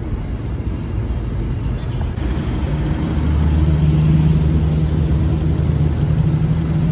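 Oil sizzling in a large deep-frying wok, joined about three seconds in by a vehicle engine's steady low hum that holds to the end and is louder than the frying.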